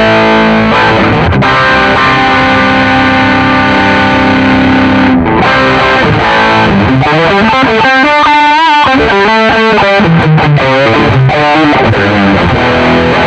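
Electric guitar played through a Nux MG-400 multi-effects processor set to a crunch distortion patch. It plays held distorted chords, then a lead phrase of bent notes with vibrato about halfway through, then returns to chords.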